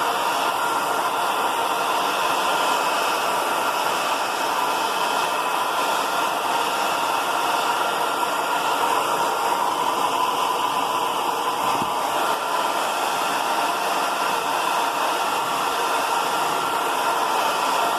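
Handheld hair dryer running steadily, a loud even rush of air with a faint motor whine, blowing hot air to shrink a plastic sleeve onto a remote control.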